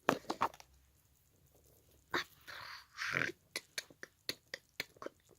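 Small plastic clicks and rattles from handling a toy milkshake cup and the little pieces inside it, with a few short rustles around the middle and a run of light ticks, about three a second, near the end.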